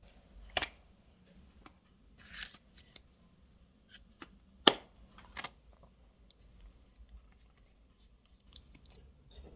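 Photocard packing supplies handled on a desk: a few sharp plastic clicks and taps, the loudest about halfway through, with a short rustle of a sleeve or wrapping about two seconds in.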